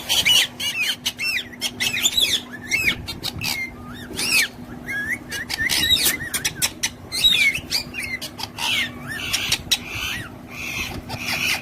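Pet parrots chirping and calling, a busy string of short calls that slide up and down in pitch, over a steady low hum.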